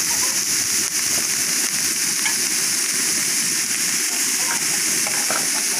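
Papaya flowers and salted fish frying in oil in a wok: a steady, even sizzling hiss.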